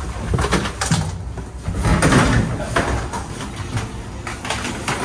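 A cardboard box of belongings being carried and handled: rustling of cardboard and plastic with a string of knocks and clatters, the loudest about two seconds in.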